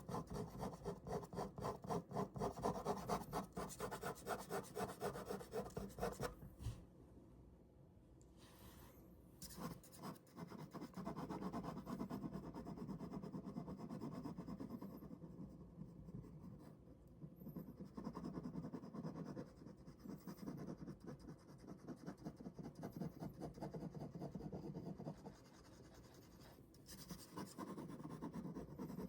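Ballpoint pen drawing on paper: rapid back-and-forth shading strokes, strongest for the first six seconds, softer for a few seconds, then steady again from about ten seconds in, with a brief pause near the end.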